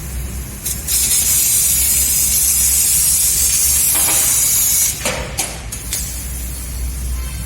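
CNC laser cutter cutting sheet steel, its assist-gas jet giving a loud, steady hiss. The hiss starts about a second in and cuts off about five seconds in, with a steady low hum underneath throughout.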